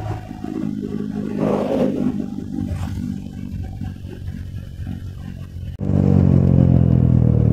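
Motorcycle engine running steadily under way, with a brief rush of noise about a second and a half in. Near the end it jumps abruptly to a louder, fuller engine note.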